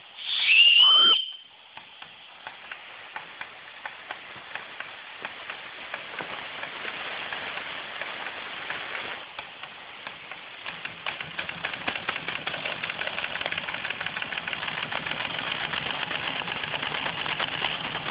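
Steam whistle on a Schoenner vertical live-steam boiler gives one short blast near the start, its pitch sliding up and then down. After that the small steam engine runs with a steady rhythmic beat of exhaust and mechanism clicks, which grows faster and louder from about eleven seconds in.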